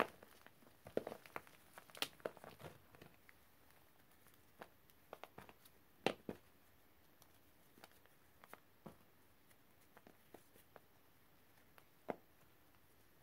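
Lumps of dry white powder crunching and crumbling under gloved hands: a quick run of soft crunches in the first three seconds, then scattered single crumbles, the loudest about six seconds in.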